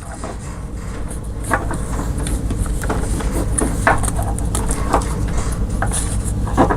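Irregular light clicks and knocks of small parts being handled, about six in all, over a steady low hum.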